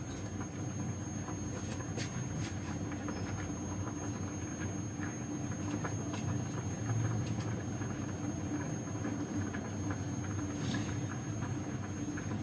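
Steady low rumble of a lit gas burner under a boiling pot of spaghetti, with scattered light clicks and taps of tomatoes being cut and de-seeded at the counter.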